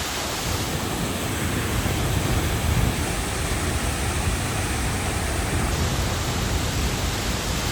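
Steady, even rushing noise with no distinct events, as from falling water or wind in the open.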